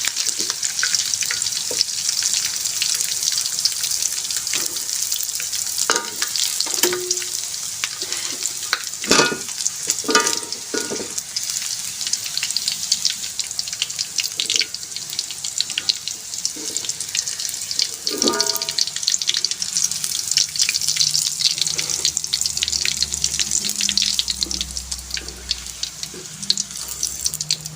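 Marinated chicken pieces frying in hot oil in a wok, a steady crackling sizzle, with a few metal clinks of a utensil against the wok as the pieces are lifted out.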